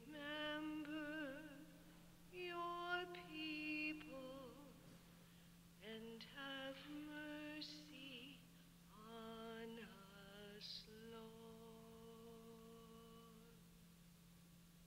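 A woman's voice singing a slow Communion hymn alone in five unhurried phrases with vibrato, the last ending on a long held note that fades away. A steady low hum runs underneath.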